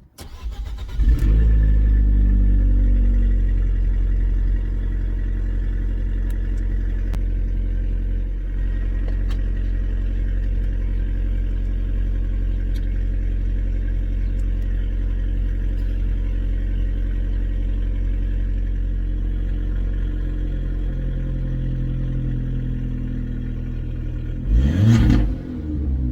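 Abarth 595's 1.4 turbocharged four-cylinder engine starting up about a second in, flaring briefly, then settling into a steady warm-up idle through the standard Monza exhaust fitted with a Toyosports 200-cell sports cat. Near the end the revs rise and fall once in a short throttle blip.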